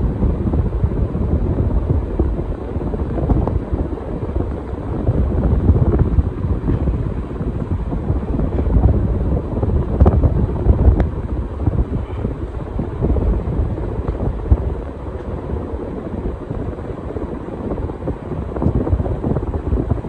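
Casablanca Spirit of Saturn ceiling fan with five blades running, its air wash buffeting the microphone as a low, wavering rush of air.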